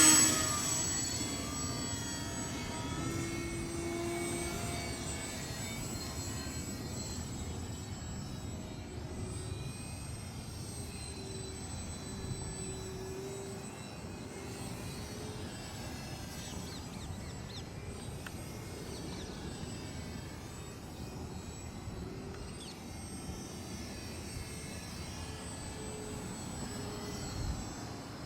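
Small electric RC 3D airplane (E-flite Inverza 280) flying, its motor and propeller whine drifting up and down in pitch as it manoeuvres. It is loudest at the very start and drops away within the first second or two.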